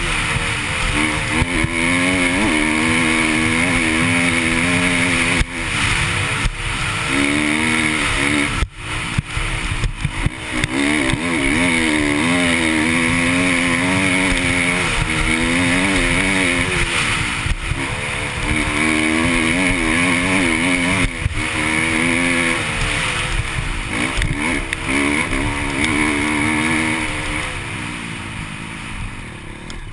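KTM dirt bike engine under way, revving up and down as the throttle is worked and gears change, dipping briefly about a third of the way in and easing off near the end.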